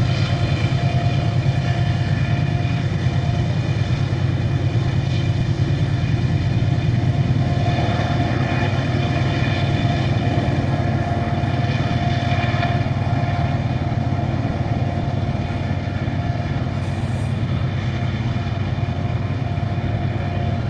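Diesel-electric freight locomotive running steadily under power: a deep, even drone with a higher whine that fades in and out.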